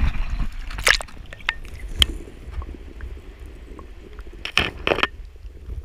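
Water sloshing against an action camera as it dips into and is held under shallow bay water: a muffled low rumble broken by a few sharp knocks and splashes, about one and two seconds in and a pair near the end.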